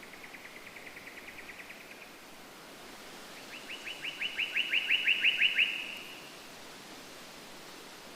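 A songbird singing two fast trills of repeated notes: a fainter one at the start, then a louder one a second and a half later that swells and stops. A steady hiss runs underneath.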